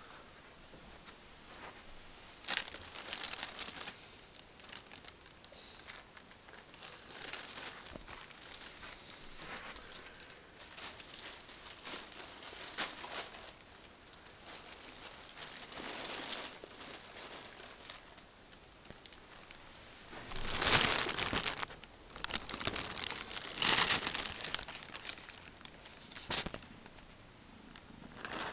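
Black plastic bin bag crinkling and rustling as a kitten moves about inside it. The noise comes in irregular bursts, and the loudest ones fall about three-quarters of the way through.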